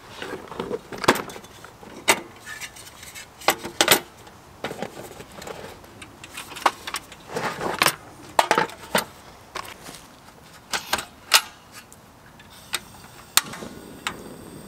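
Scattered clicks and clatter from handling and setting up a portable butane cartridge gas stove. Near the end there is a sharp click as the stove is lit, then a steady faint hiss from the burning burner.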